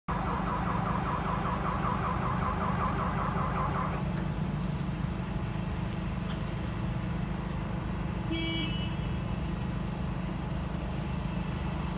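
Leopard tank's diesel engine running with a steady low rumble. For the first four seconds a pulsing tone repeats about four times a second, then stops; a short beep sounds about eight and a half seconds in.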